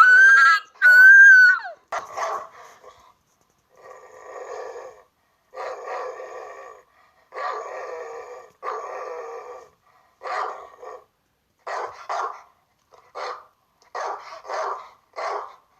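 A shrill high-pitched cry over the first second and a half, then a dog growling in several long stretches, followed by a quick run of short barks.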